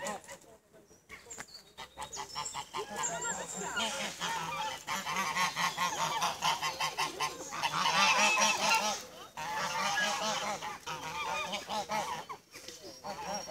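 Flock of white domestic geese honking, many calls overlapping. The honking is quieter for the first second or two, thickens from about two seconds in, and is loudest around eight seconds.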